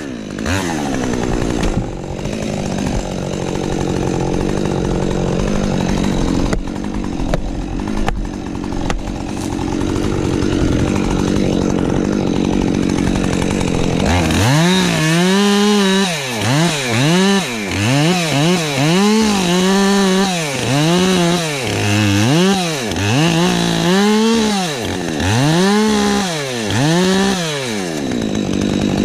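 Husqvarna 550 XP Mark II two-stroke chainsaw running steadily under load for about the first half. It then revs up and drops back over and over, roughly once a second, until near the end.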